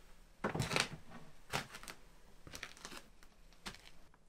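Crinkling and rustling of plastic and paper food packaging in short bursts, the loudest about half a second in, followed by scattered light crackles and taps.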